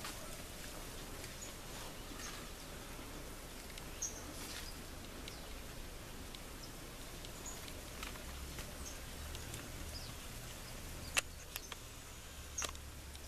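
Faint outdoor background with scattered short, high chirps and a few sharp clicks, two of them near the end.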